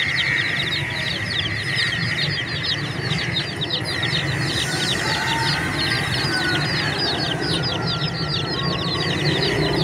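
A crowd of baby chickens peeping together: many short, high, down-slurred peeps overlapping in a continuous chorus.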